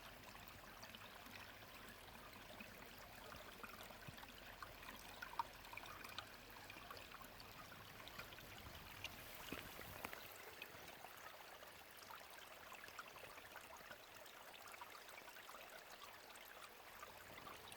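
Small mountain-valley stream trickling over rocks, faint and steady, with a single light click about five seconds in.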